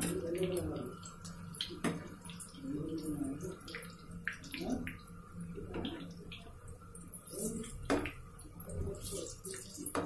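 Besan vadas (gram-flour fritters) deep-frying in hot oil in a frying pan: a steady bubbling sizzle. Sharp clicks and scrapes of a metal slotted skimmer against the pan come every couple of seconds as the fritters are turned.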